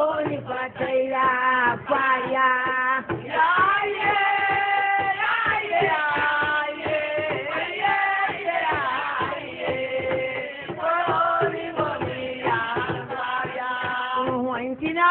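A woman singing a melody into a microphone over music, her voice gliding and breaking into short phrases. The sound is dull, with nothing above the midrange, as on an old video tape.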